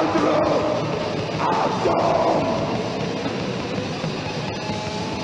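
Loud, dense heavy rock music, with sliding notes over the first two seconds and steadier held notes after.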